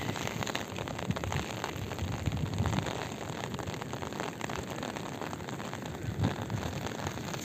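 Steady rain falling, a dense hiss of fine drops, with low rumbles coming and going.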